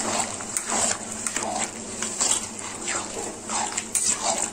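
A metal spatula stirring chickpeas in watery masala gravy in a metal kadai, just after hot water has gone in. The liquid sloshes with each stroke, about two strokes a second, over a steady hiss from the bubbling gravy.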